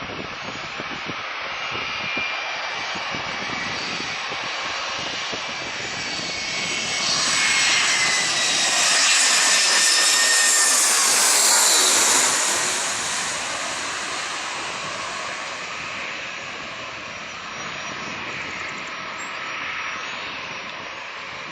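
Jet airliner's engines passing close by, growing louder to a peak about halfway through and then fading, with a whine that drops in pitch as it goes past.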